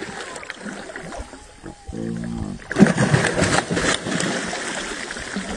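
A hooked fish thrashing and splashing hard at the surface, loudest from about three seconds in and easing off after a second or so, just after a short low growl-like sound.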